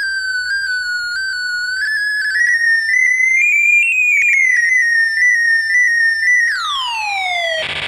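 PipoLolli raygun sound-effect synth playing a bright electronic tone that steps up and down in pitch in small jumps, rising to a peak about four seconds in and settling back. About six and a half seconds in it swoops steeply down, then breaks into a burst of harsh noise near the end.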